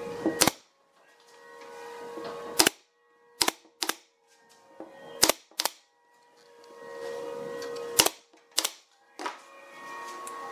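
Pneumatic brad nailer firing nails into a pine chair frame: about ten sharp shots, several in quick pairs, with pauses between as the nailer is moved along.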